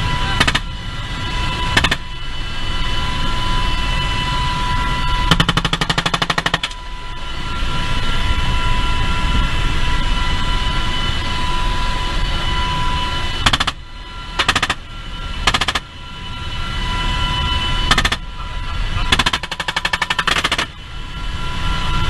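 Military helicopter in flight, its turbines giving a steady whine over the rotor noise, heard inside the cockpit. Repeated machine-gun bursts cut in: two short bursts at first, a longer burst of about a second and a half about five seconds in, then several short bursts and a final long burst near the end.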